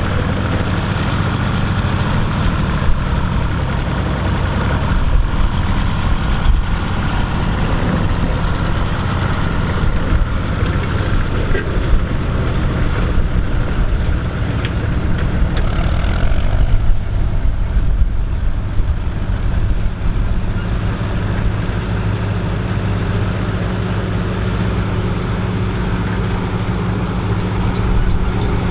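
Ferguson tractor with a Selena four-wheel-drive conversion, its engine running steadily while it pulls a Ferguson disc plough through the field.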